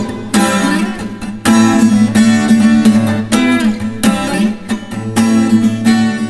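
Acoustic guitar strummed in chords, with a fresh strong stroke every half second to a second, playing an instrumental passage with no voice.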